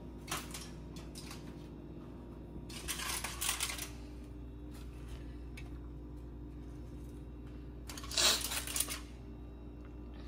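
Kitchen handling noises: three short rustling, clattering bursts, the loudest near the end, over a steady low hum.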